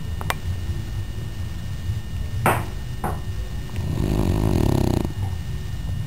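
French Bulldog snoring in his sleep: a low, steady rumble that swells about four seconds in into one louder rattling snore lasting about a second. Two short sharp sounds come about halfway through.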